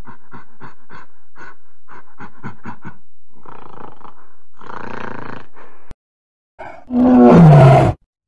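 A run of short rhythmic animal calls, about four a second, gives way to a rougher, drawn-out stretch. Near the end comes the loudest sound, a tiger's roar that falls in pitch and stops within about a second.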